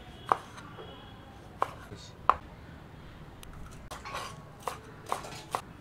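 Kitchen knife cutting tomato and green capsicum on a wooden cutting board: separate sharp knocks of the blade striking the board, three strong ones in the first half, then a quicker cluster of knocks near the end.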